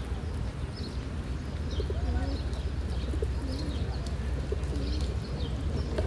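Feral pigeons cooing: several low, wavering coos from about two seconds in, with faint high chirps, over a steady low rumble.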